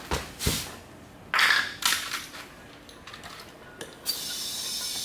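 A few short knocks and brief hisses, then from about four seconds in a steady hiss of compressed air from an air chuck on a go-kart tire's valve stem, filling a tubeless tire whose bead has just been blown onto the rim with a flash of lit spray.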